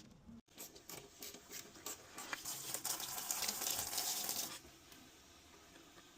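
Water running and trickling, with small clicks and taps. The hissing flow is loudest in the middle and stops suddenly a little past halfway.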